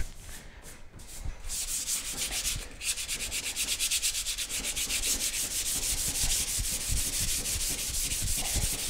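Sandpaper hand-sanding the guide-coated primer on a car body panel, in quick back-and-forth strokes. The strokes start about a second and a half in and break off briefly just before three seconds.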